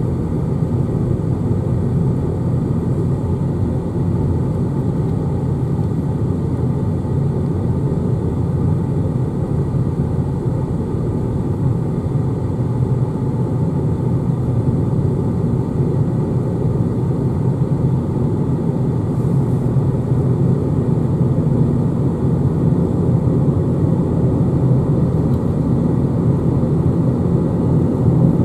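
Steady low rumble of a car driving along a highway, tyre and engine noise heard from inside the cabin.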